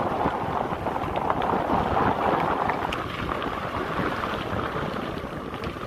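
Wind rushing over the camera microphone while a mountain bike rolls fast down a gravel forest path, the tyres crunching, with scattered small clicks.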